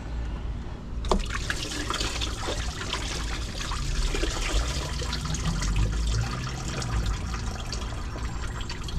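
Fluid pouring and trickling into a drain pan from the radiator and line connections being undone, starting about a second in with a steady splashing, crackly stream.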